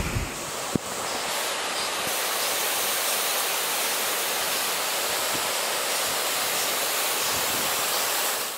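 Mountain stream cascading over rocks: a steady rushing hiss. Wind rumbles on the microphone at the start, cut off by a click just under a second in.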